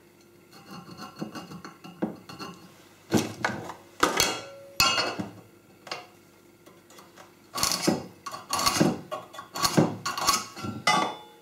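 Hand tools handled on a steel plate on a workbench: soft scratching for the first couple of seconds as a line is marked, then a series of sharp metallic clinks and clatters as the folding rule and marking tools are put down and picked up again.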